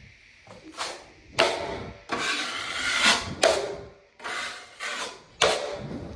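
A hand tool scraping across drywall in about six strokes, each lasting roughly half a second to a second, with short pauses between them.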